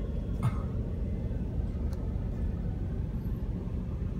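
Steady low rumble of a Ford Super Duty pickup driving on a dirt road, heard from inside the cab, with a brief sharp sound about half a second in.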